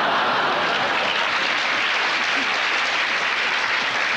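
A large theatre audience applauding, steady and sustained.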